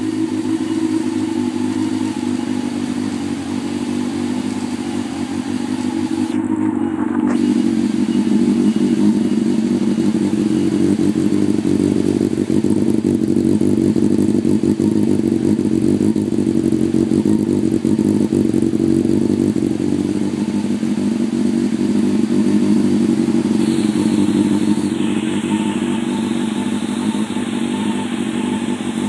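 Honda CB400 Super Four's inline-four engine idling steadily through a Striker full exhaust with an aftermarket silencer, shortly after being started.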